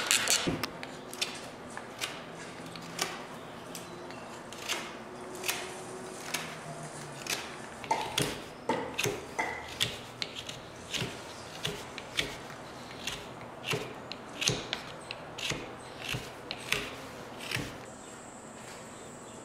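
Knife blade whittling honeysuckle wood between the tines of a fish spear head: short, sharp shaving strokes at irregular intervals, about one or two a second. The strokes stop near the end.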